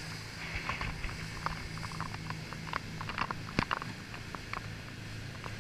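Motorboat running at speed: a steady low engine hum under irregular sharp taps and patter as the hull slaps through the chop and spray hits the boat.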